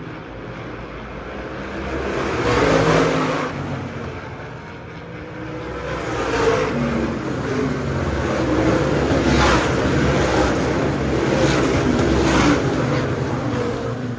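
Supermodified race cars' V8 engines running around the oval, the sound swelling and fading as the cars go by. It is loudest about three seconds in and again from about nine to twelve seconds in.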